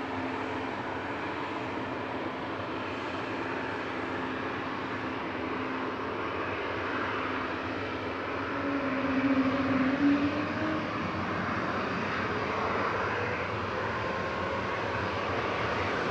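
Jet engines of an Airbus A220-300 on its takeoff run, its Pratt & Whitney PW1500G geared turbofans giving a steady rushing drone over a low hum. A brief louder tone comes about nine to ten seconds in, and the engine noise builds slowly.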